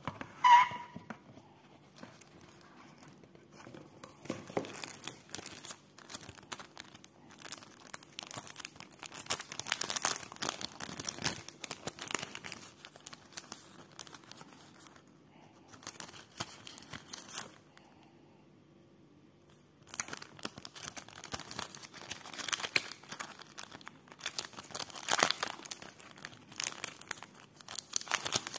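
Clear plastic sleeve and paper inserts from an earbud box crinkling and rustling in hands, in bursts with short pauses. A short, sharp squeak comes about half a second in.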